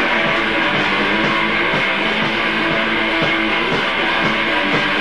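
Loud live rock music led by strummed electric guitar, held at a steady level.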